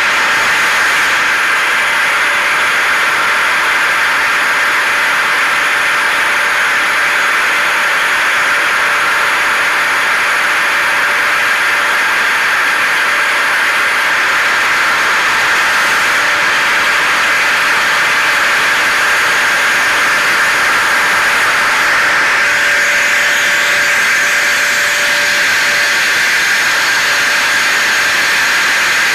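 Hair dryer and vacuum cleaner running together as a steady, continuous whoosh with a thin motor whine over it. The tone shifts slightly about two-thirds of the way through.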